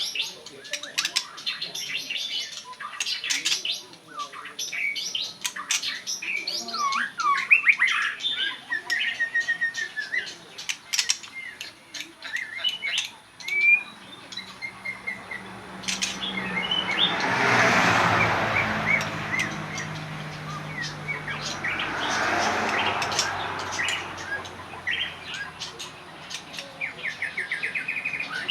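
Songbird singing in varied whistled phrases, quick chirps and short trills, thickest in the first half. Past the middle a rushing noise with a low hum swells up twice while the bird keeps calling, and a fast trill comes near the end.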